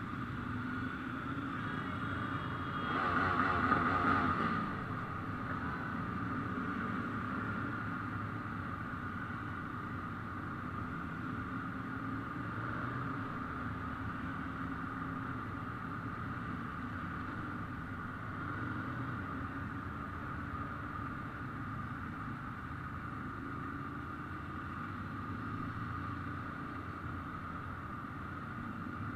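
Many Ducati motorcycle engines running together in a steady rumble. One bike swells louder and close by about three seconds in, then fades within a couple of seconds.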